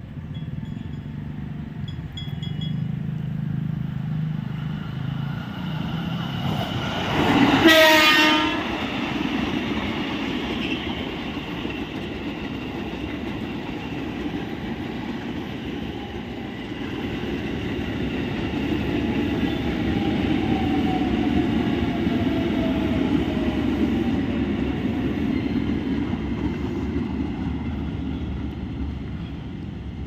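KRL Commuterline electric commuter train approaching and passing close by, giving one short horn blast of about a second roughly eight seconds in. This is followed by a long, steady rumble of wheels clattering over the rails and a slowly falling motor whine.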